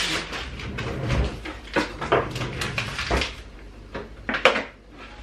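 Kitchen handling sounds: a plastic flour bag rustling and crinkling as it is handled over a mixing bowl, with several sharp knocks against the counter, the loudest about four and a half seconds in.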